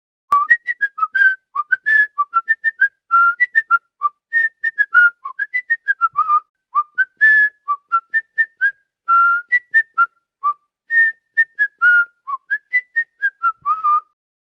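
Whistling a quick tune of short, clear notes that hop up and down in pitch, about three or four notes a second.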